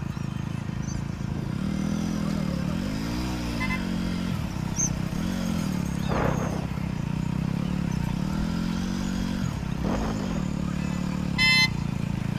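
Motor vehicle engines running close by, rising and falling in pitch as they rev, with a short vehicle horn toot near the end.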